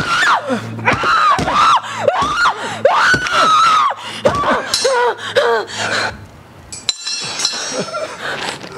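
A woman screaming over and over in high shrieks that rise and fall, dying down about six seconds in to quieter gasping.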